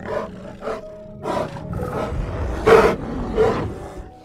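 Bears roaring in a series of about seven short, harsh calls, the loudest near three seconds in, over soft background music.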